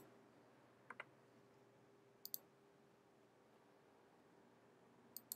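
A few faint computer clicks from a mouse and keyboard, in three quick pairs about a second, two seconds and five seconds in, over a faint steady room hum.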